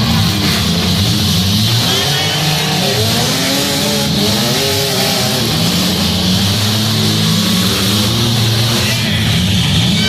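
Several demolition derby cars' engines running and revving loudly in the arena, one over another, without a break.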